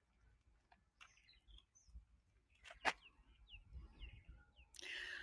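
Faint bird chirps: about four short falling notes in a row, after a single sharp click about three seconds in, with a brief rush of noise near the end.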